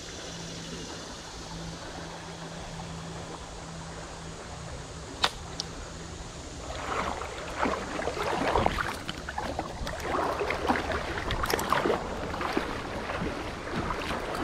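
Steady flow of a shallow creek, with two sharp clicks a little after five seconds in; from about seven seconds in, a louder run of irregular rustling and knocking noise comes over it.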